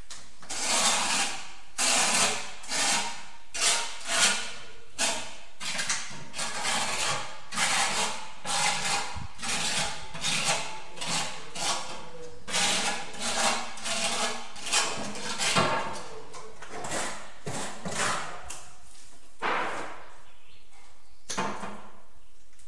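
Repeated scraping strokes of a hand tool drawn over mortar, about one or two a second, growing sparser near the end.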